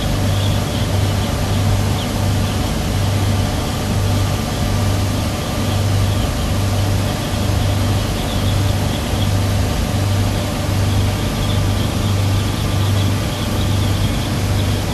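Twin Tohatsu 250 four-stroke outboard motors running steadily at cruising speed, about 25 mph: a low engine hum that pulses about twice a second, under a steady rushing noise.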